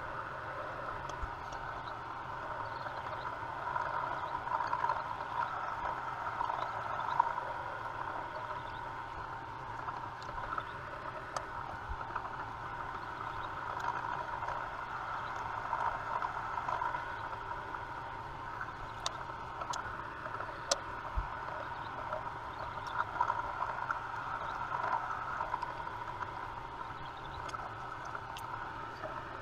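Drill running steadily while a #28 drill bit bores a radial hole through a metal ring, with a few sharp ticks.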